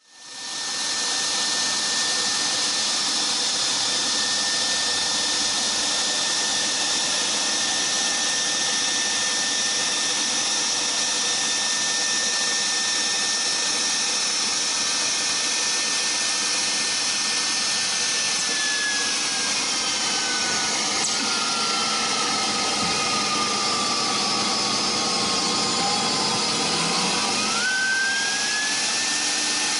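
Dual HSD router spindles of a CNC router running at high speed while routing aluminium composite panel: a steady high whine over a loud hiss of cutting. Past the middle one spindle's whine slowly falls as it winds down, and near the end the other spindle's whine rises quickly as it spins up, the tool change from one spindle to the other.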